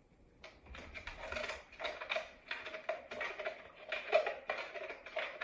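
A spoon stirring a yeast-and-water mixture in a small cup, knocking and scraping against its side in a quick, irregular run of short strokes, about two or three a second.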